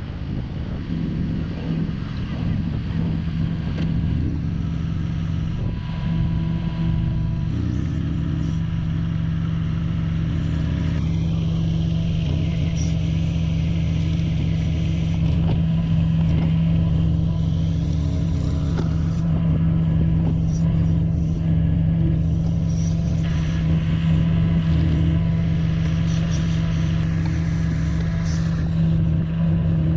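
Engine of a small machine running at a steady speed, slowly getting louder.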